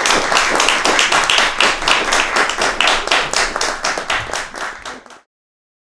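Audience applauding: many hands clapping densely and unevenly. The applause fades a little toward the end, then cuts off abruptly about five seconds in.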